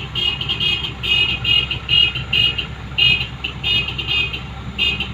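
Truck engines idling with a steady low rumble, under a run of short, high-pitched electronic beeps coming two or three a second in an uneven rhythm.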